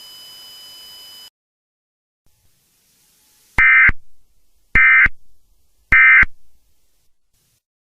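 Emergency Alert System end-of-message tones: three short, harsh digital data bursts about a second apart, signalling the end of the alert. Before them, a faint hiss cuts off about a second in.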